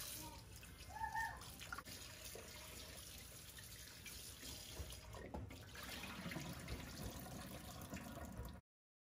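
Kitchen tap running into a bowl in a stainless steel sink while raw chicken wings are rinsed and rubbed by hand, with a few light clinks of the bowl. Near the end the bowl is tipped and the water poured off, and the sound cuts off suddenly just before the end.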